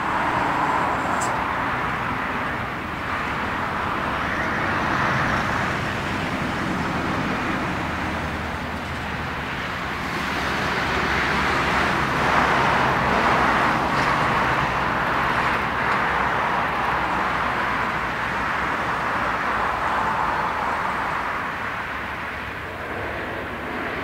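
Boeing 737-800's CFM56-7B turbofan engines at takeoff thrust: a continuous jet roar with a whining tone in it. It is loudest about halfway through, as the airliner lifts off, and stays strong as it climbs away.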